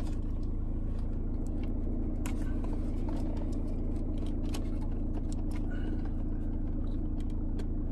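A car engine idling steadily, with faint clicks and scrapes of wiring and dash trim being handled.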